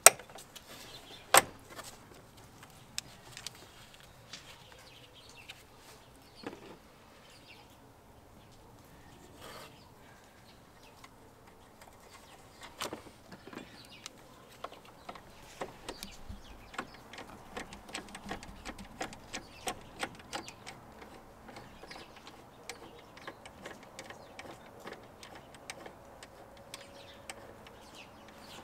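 Hands fitting a car battery into its tray and fastening its hold-down strap: scattered small clicks and knocks of plastic and metal, with one sharper click about a second and a half in.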